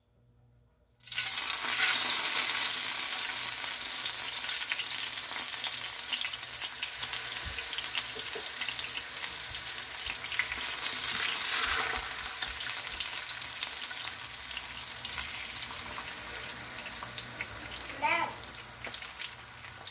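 Small tortillas dipped in red chile sauce frying in hot oil in a nonstick griddle pan, sizzling steadily. The sizzle starts suddenly about a second in as the first tortilla goes into the oil, and eases slightly toward the end.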